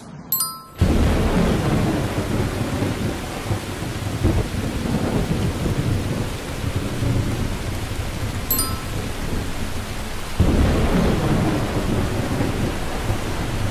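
Rain-and-thunderstorm sound effect: steady heavy rain with thunder rumbling underneath, growing louder about ten seconds in. A short bright ding sounds just before the rain starts and again about two-thirds of the way through.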